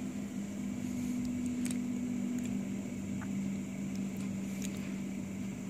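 Mack LR split rear-loader garbage truck's diesel engine running with a steady low hum made of two tones, one of which drops out about halfway through. A few faint clicks sound over it.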